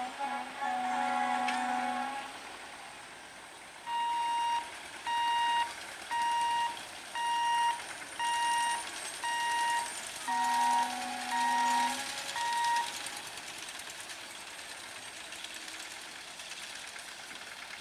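Diesel locomotive horn: a long chord-like blast that ends about two seconds in. Then comes a run of about ten short high-pitched beeps, roughly one a second, with a second lower horn blast over them near the middle. A steady rushing noise follows in the last few seconds.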